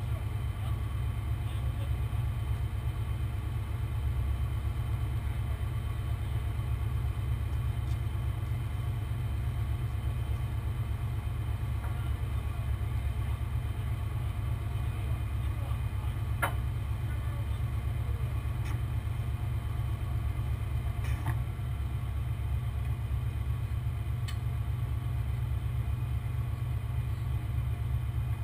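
Heavy truck engine running steadily at a low rumble, with a few faint clicks over it.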